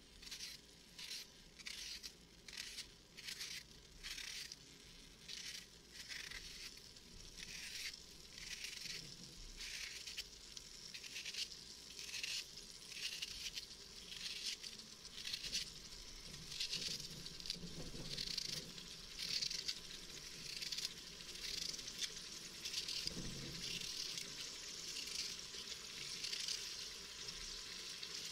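A raw onion is sliced by hand with a small knife, each cut a short sharp sound, a little under two a second, and the slices drop into the pot. In the second half a steady sizzle of oil heating in the Instant Pot's inner pot rises underneath.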